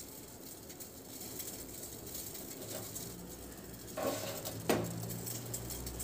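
Saucepan of lemongrass tea simmering on a gas burner over a low flame: faint bubbling and crackling, with two short knocks about four and five seconds in.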